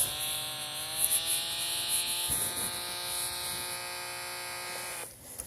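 Snap Circuits toy speaker buzzing out a steady electronic tone, its pitch rising slightly in the first second, then cutting off suddenly about five seconds in.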